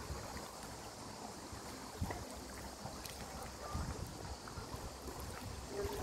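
Sea water lapping and trickling among shore rocks, with wind rumbling on the microphone and a light knock about two seconds in.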